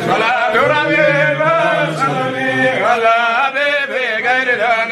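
Chanted Arabic religious praise of the Prophet: a voice singing a drawn-out melodic line that wavers and bends in pitch.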